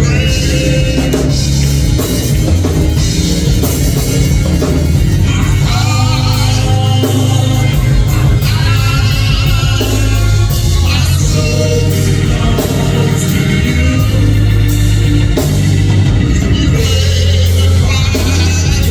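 Live church praise music: a band with drums, bass and guitar playing steadily, with voices singing over it.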